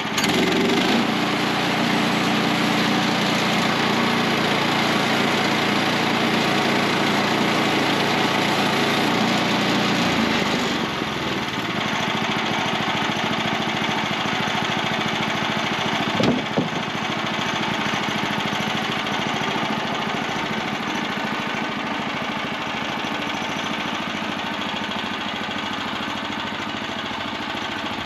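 Woodland Mills portable band sawmill's small gas engine running at high throttle, then dropping to a lighter, steadier run about ten seconds in as the cut ends. A single thump comes about sixteen seconds in.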